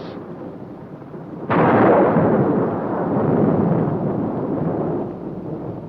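A thunderclap: a sudden crack about a second and a half in, then a rolling rumble that slowly dies away over several seconds, over a quieter storm rumble.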